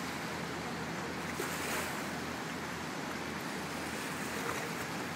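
Steady rush of Rhine river water and wind, with a low steady drone underneath.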